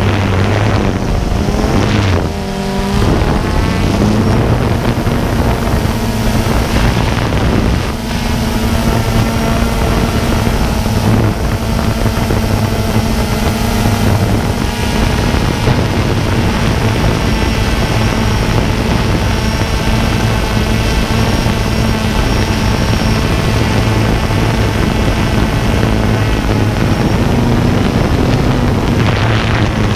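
DJI Phantom 2 quadcopter's electric motors and propellers droning steadily in flight, heard close up from the GoPro on its gimbal. The pitch shifts a little as the drone works.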